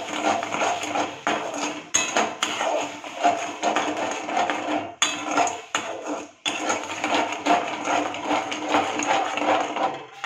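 Spatula scraping and clinking against a steel kadai in a quick, uneven run of strokes, stirring thick mango pulp and sugar as it cooks down into a jelly.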